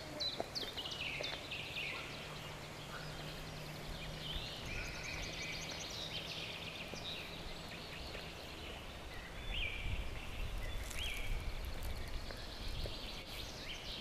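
Songbirds singing and calling from the surrounding woods: a quick run of falling notes at the start, then scattered chirps and trills. A low rumble comes in during the second half.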